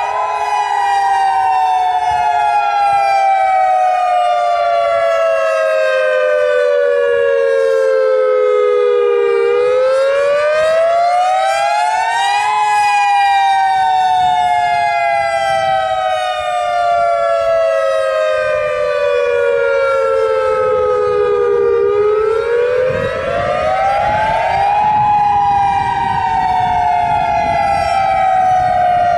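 Federal Signal EOWS 612 electronic tornado siren sounding its wail signal. The pitch slides slowly down for about nine seconds, then climbs quickly for about three, repeating a little over twice. It is loud, with many overtones above the main tone.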